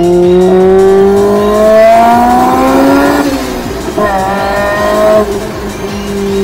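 Honda B16B 1.6-litre VTEC inline-four of a Civic Type R, breathing through a Mugen 4-1 header and twin-loop exhaust, pulling hard with the revs climbing steadily for about three seconds. The pitch drops sharply at a gear change, jumps up and falls again about a second later, then sinks slowly near the end as the car eases off.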